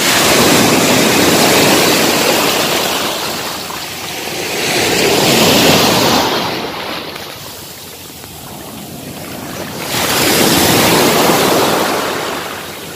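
Small waves breaking and washing up a sandy beach in foamy surf. The wash swells and fades three times, about every four to five seconds.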